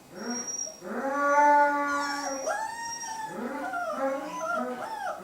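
A puppy crying in a string of long, wavering howling whines, the pitch bending up and down. These are distress cries from a puppy that is held against her will during a restraint test and struggling to get free.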